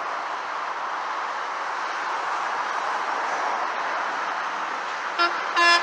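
Steady road traffic noise, then near the end a truck's horn sounds two short blasts.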